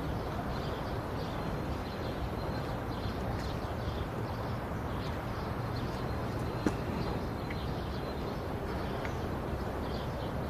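Steady outdoor background ambience with faint, scattered bird chirps. A single light click comes about two-thirds of the way through.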